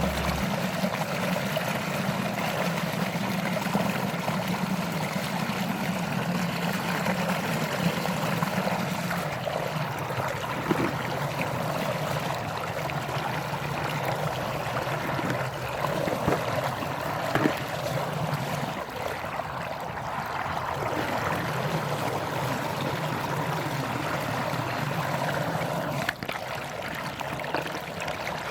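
Steady running water with a few faint knocks.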